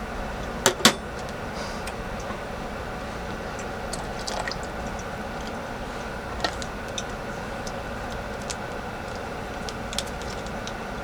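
Two sharp clinks of cooking utensils, close together about a second in, then scattered light clicks and ticks over a steady hum.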